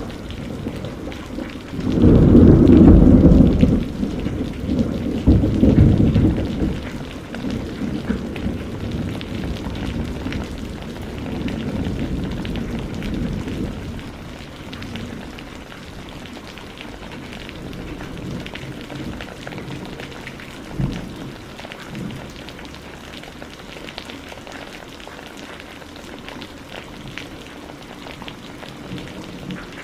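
Steady rain pattering down, with two loud low rumbles of thunder in the first few seconds and a shorter, sharper thunder knock about two-thirds of the way through.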